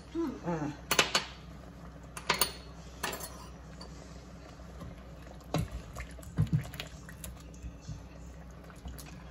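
Kitchen utensils knocking and clinking against a nonstick pan as pieces of fuzzy gourd are moved about in simmering braising liquid: a few sharp taps in the first three seconds, then softer knocks about halfway through. A steady low hum runs underneath.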